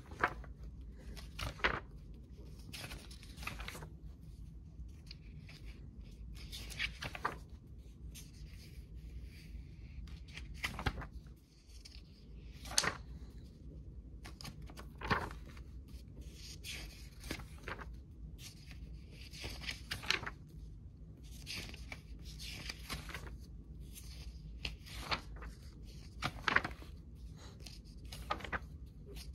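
Paper pages of a thick old school textbook being turned by hand, one after another, a short papery rustle every two to three seconds.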